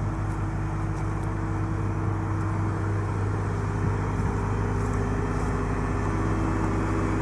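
Large vehicle engine running at a steady speed, a constant low drone with a steady hum, while the tank is lowered into the hole.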